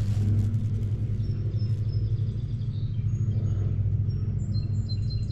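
Bumblebee buzzing close up, a steady low hum of its beating wings.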